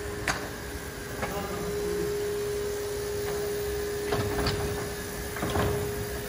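Movable partition wall panel rolling along its overhead track as it is pushed into place, with several sharp knocks and clicks from the panel and its trolley, over a steady hum.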